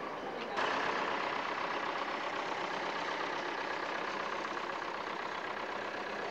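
Tractor engine running steadily as it tows a parade float past. The sound starts abruptly about half a second in.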